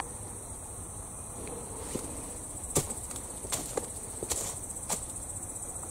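Insects singing in a steady high-pitched trill, cricket-like, with about five sharp snaps or clicks spread through the middle.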